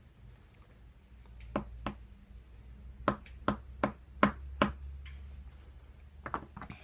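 Sharp taps on a disassembled ASSA lock cylinder, knocking a stuck pin out of its chamber. There are two taps, then a run of five at about two and a half a second, then two more near the end.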